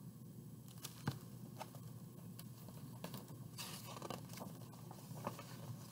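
Faint clicks and handling noises from a large hardback picture book, then a rustle of paper as a page is turned about three and a half seconds in.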